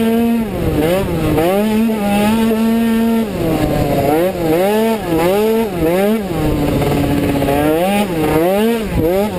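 Automatic racing scooter's small two-stroke engine running at high revs, heard from the rider's seat. It holds one steady pitch for about three seconds, then drops and climbs back over and over, about every two-thirds of a second, as the throttle is rolled off and reopened.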